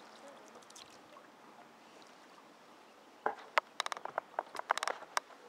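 Sounds of a canoe being paddled: a faint steady background, then about three seconds in a quick, irregular run of small clicks, knocks and splashes from the paddle and water against the canoe, lasting about two seconds.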